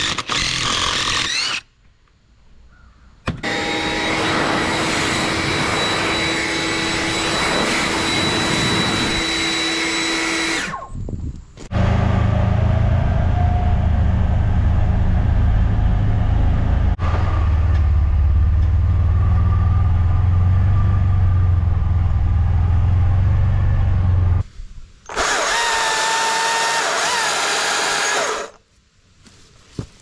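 A cordless drill runs briefly, boring into a log. Then a machine runs steadily with a constant whine for about seven seconds. After that a vehicle engine drones low and steady for about twelve seconds, and near the end a loud machine runs for about three seconds with a wavering whine.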